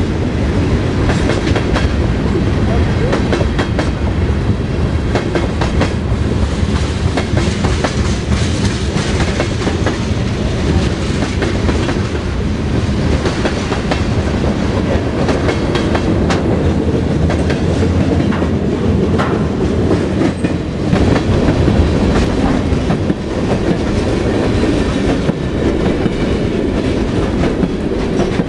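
Mixed freight train of gondolas, tank cars and boxcars rolling past: a steady, loud rumble of steel wheels on the rails, with a dense clickety-clack of the wheels over the rail joints.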